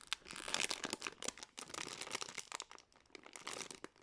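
Handling noise: irregular crinkling and rustling of plastic as squishy toys are picked up and handled, faint and crackly.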